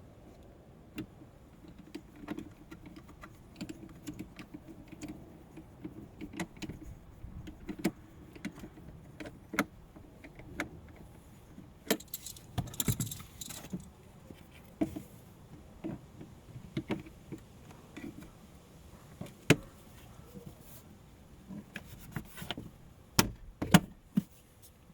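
Irregular clicks, taps and rattles of small hard parts being handled, with a denser rustling rattle a little before halfway: hand work on the car's interior trim and cabin air filter housing.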